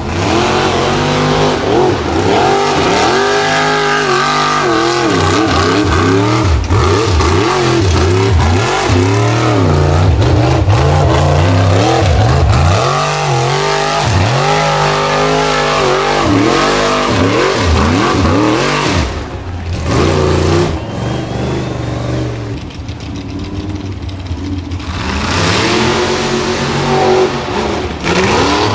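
Unlimited-class Formula Offroad buggy's engine revving hard in rapid rises and falls as it climbs a steep sand slope. The engine eases off about two-thirds through, then revs up again.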